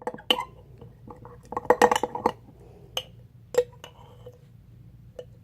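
Spoon clinking against a glass container while stirring slime. The sharp clinks come irregularly, each with a short ring, and a quick bunch of them falls about two seconds in.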